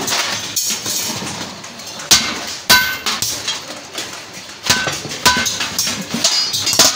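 Hammer blows riveting a handle lug onto the rim of a galvanized steel bucket: several sharp strikes, some in pairs, each with a brief metallic ring from the thin sheet steel.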